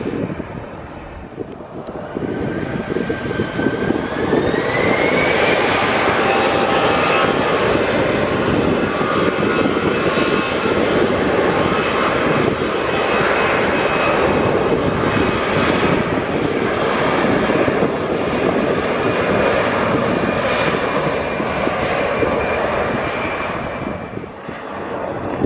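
Airliner engines spooling up, a whine rising in pitch over a few seconds, then running loud and steady with a whining tone over the rush of the engines. The sound eases near the end.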